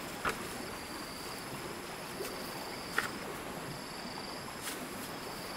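Insects trilling steadily with a high, on-and-off chirr, and two short scraping knocks, about a third of a second in and about three seconds in, as a blade digs into soil.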